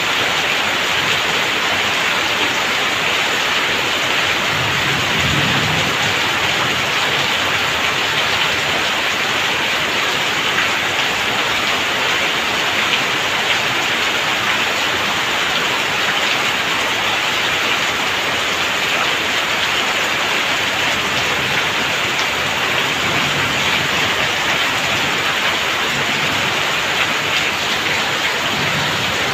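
Heavy rain pouring steadily, with water streaming off the roof eaves and splashing onto wet ground.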